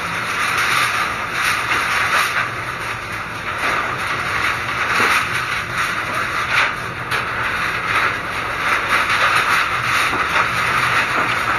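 Steady noise of typhoon wind and rain against a corrugated metal roof, with loose, torn-up roof sheets rattling and clattering throughout.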